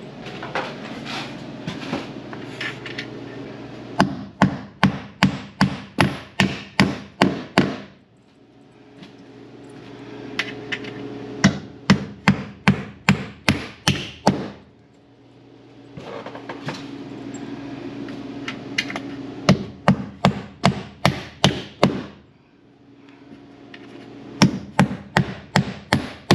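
Claw hammer driving nails through a metal F&J ceiling molding into a wooden backer board, in four runs of quick, evenly spaced strikes, about three a second, with short pauses between nails.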